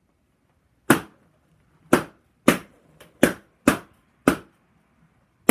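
Latex party balloons being popped one after another: six sharp, loud pops spaced half a second to a second apart, beginning about a second in.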